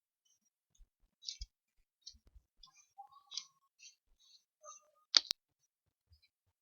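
Faint, scattered clicks and ticks, with one sharp click about five seconds in.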